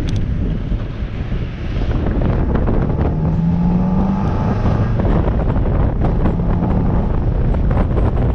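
Wind buffeting the microphone of a bonnet-mounted camera on a moving Mazda MX-5 NB, with the car's four-cylinder engine and intake audible underneath. The engine note rises about three seconds in as the car picks up speed, and the whole sound grows louder.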